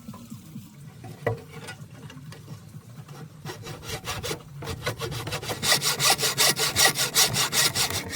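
Hand saw cutting through wood in quick, regular back-and-forth strokes, several a second, getting much louder from about halfway. A single knock about a second in.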